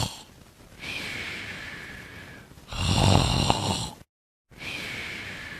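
A person snoring in their sleep: one loud snore on the in-breath about three seconds in, with softer hissing breaths out before and after it.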